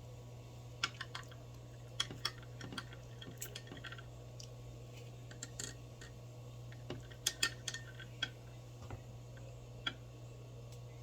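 Scattered light clicks and taps of small hard objects being handled, in a cluster from about one to four seconds in and another around seven seconds in, over a steady low hum.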